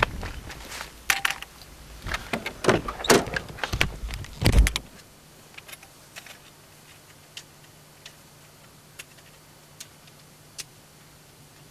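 Wind rumble on the microphone with handling knocks and clicks, then a car door shuts with a heavy thump about four and a half seconds in, cutting off the wind. After it, quiet car-cabin stillness with a faint steady hum and a few soft ticks.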